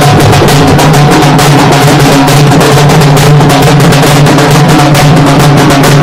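Halgi (halige) frame drum beaten fast with a thin stick, a dense, steady stream of sharp strokes over a ringing drum-head tone.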